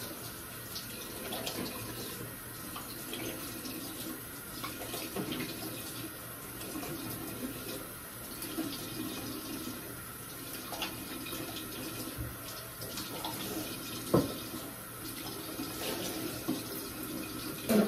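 Bathroom sink tap running steadily while a face is washed and rinsed at the basin. A single sharp knock about fourteen seconds in.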